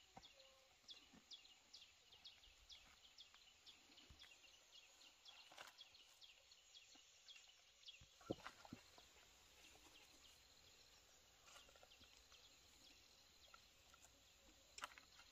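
Near silence with faint, short high chirps repeated about two or three times a second through the first half, then a few soft knocks around the middle as chayote squash are set down on banana leaves.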